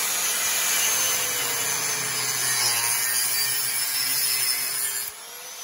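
Angle grinder with a cutting disc grinding through a rusted steel exhaust pipe, a steady loud cutting noise; it cuts off sharply about five seconds in as the disc breaks through or lifts off the pipe.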